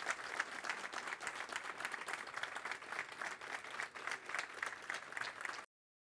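Audience applauding, many hands clapping densely and evenly; it stops abruptly near the end.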